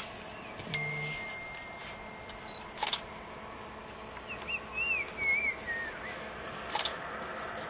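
Camera shutter clicking three times, a few seconds apart, with a bird's whistled, swooping calls in between.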